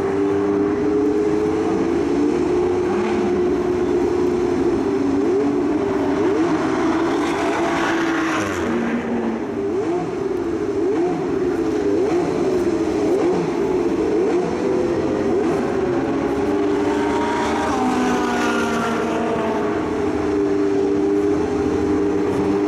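Several car engines running at once, their pitches rising and falling and crossing one another as the cars pass.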